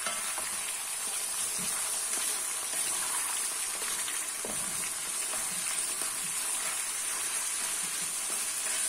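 Pieces of duck meat sizzling steadily in hot oil in a metal kazan as they start to brown, turned over with a wooden spatula.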